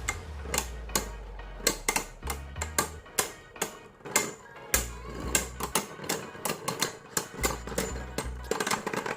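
Background music with a low bass line, overlaid by many sharp, irregular clicks and taps, several a second.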